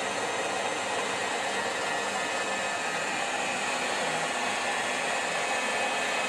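Metal lathe running steadily with a large faceplate spinning, a boring bar cutting a cross hole in the part clamped to it: an even mechanical whir.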